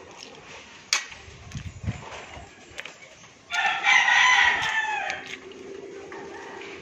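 A rooster crowing once: a single pitched call of about a second and a half starting around halfway through, dropping in pitch as it ends. A sharp click comes about a second in.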